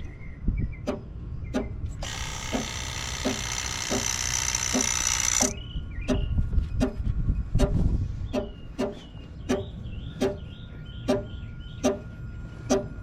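Brake actuator and accumulator assembly of a 2008 Toyota Camry Hybrid making even clicks, about three every two seconds, with a loud hiss that starts about two seconds in and lasts about three and a half seconds. This is the noise of an accumulator with an internal leak (code C1391).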